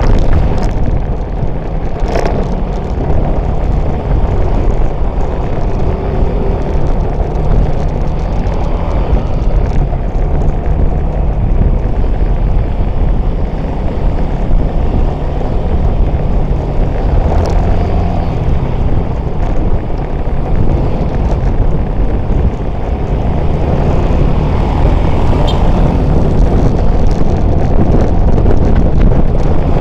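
Steady, loud wind rumble on the microphone of a camera riding on a moving motorcycle, mixed with vehicle and road noise, with a couple of brief clicks.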